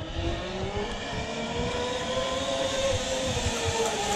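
Zipline trolley pulleys running along the cable: a whine that rises in pitch over the first few seconds and falls away near the end, over a steady rushing noise.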